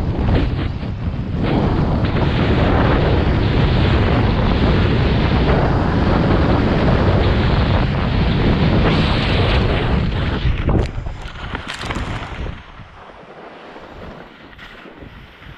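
Wind buffeting the microphone in a loud, steady rush that drops away suddenly about twelve and a half seconds in, followed by a few short knocks.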